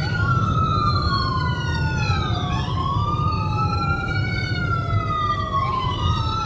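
Several emergency-vehicle sirens wailing at once, their pitches slowly sweeping up and down and crossing over each other, over the low steady rumble of a moving car's cabin.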